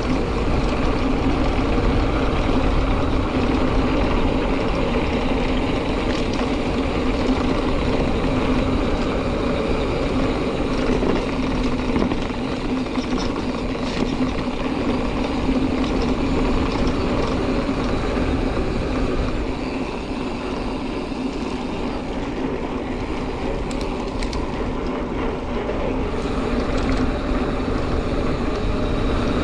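Giant Fathom 2 29er hardtail mountain bike riding a dirt trail: steady rolling rumble and hum of knobby tyres on dirt, with wind and rattle noise, continuous throughout.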